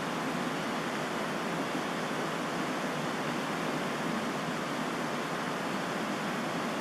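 Steady, unbroken rushing noise at an even level, with no pitch and no separate events.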